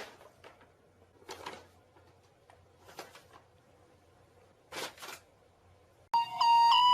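A few brief rustling knocks about one to two seconds apart in a quiet room, the last a quick double one; music starts near the end.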